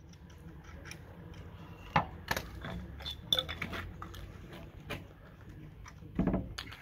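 Small metal clicks and clinks of loose door hardware being handled and picked up off a concrete floor, a few sharp ticks spread through, with a louder knock near the end.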